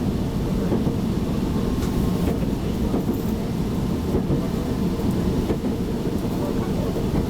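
Meitetsu 7000 series Panorama Car train running, heard on board as a steady low rumble, with a few faint ticks from the wheels and running gear.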